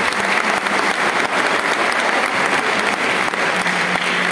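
Audience applauding: many hands clapping together, a dense, steady clatter.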